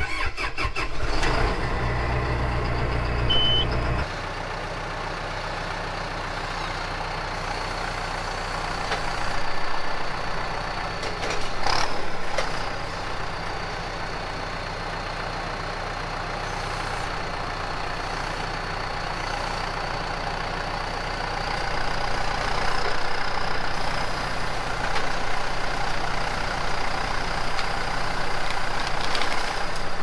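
John Deere diesel tractor engine starting at the turn of the key, then running steadily as the tractor works its front loader, with a thin steady high whine over the engine. The engine swells louder a few times, with a sharp knock about twelve seconds in.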